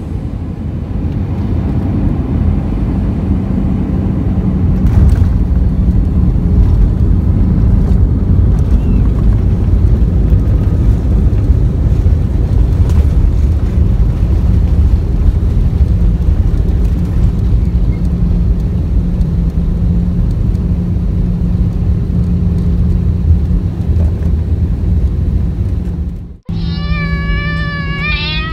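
Airbus A320 cabin noise during landing: a loud, steady low rumble of the engines and the airframe on the approach and runway roll. It grows over the first few seconds and cuts off abruptly near the end, followed by a brief wavering tone.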